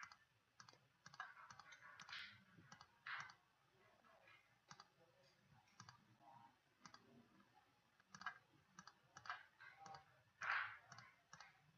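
Faint, scattered computer mouse clicks, a few seconds apart, as areas of the image are clicked to erase them, with a soft short sound about ten seconds in.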